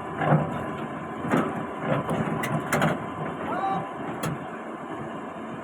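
Heavy machinery running steadily, with irregular sharp knocks and clanks over the first few seconds.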